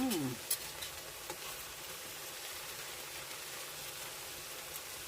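Squash and pork stir-fry sizzling steadily in the pan with the heat just turned off, with a few light clicks near the start.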